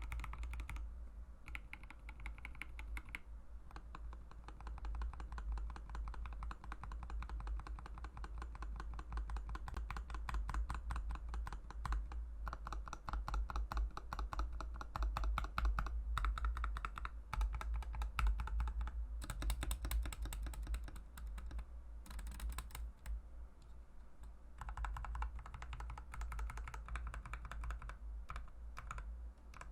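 Continuous fast typing on a mechanical keyboard fitted with Mauve linear switches: a dense run of keystroke clacks, thinning briefly a couple of times.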